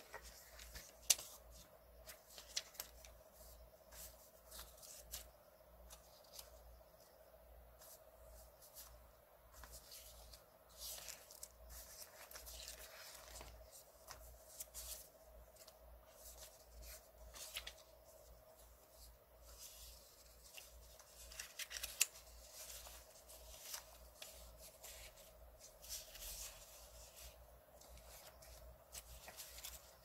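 Loose sheets of paper and card rustling, sliding and crackling as hands shuffle and sort through a pile of vintage paper ephemera, with frequent crisp rustles and light taps. A faint steady hum sits underneath.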